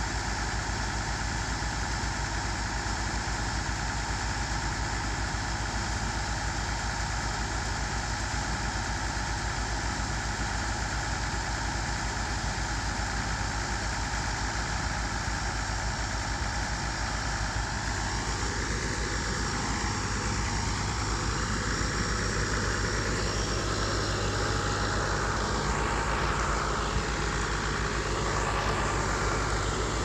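John Deere tractor engine running steadily, driving the grain cart's auger as it unloads corn. A wavering higher sound joins in about two-thirds of the way through.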